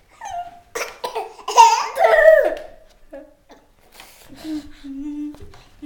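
A baby and a young child laughing in short bursts of giggles, loudest about two seconds in, then a drawn-out low babble in the last second and a half.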